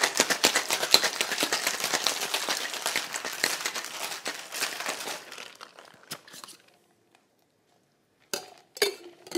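Ice rattling hard inside a metal cocktail shaker during a vigorous shake, a fast dense clatter that fades out about six seconds in. A couple of sharp knocks come near the end.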